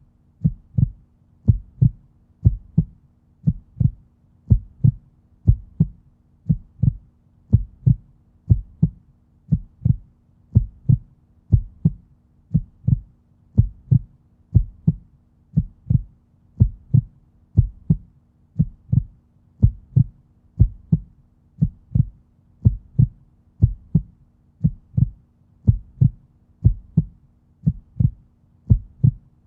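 Human heartbeat, a steady lub-dub double beat of deep thumps about once a second, with a faint steady hum underneath.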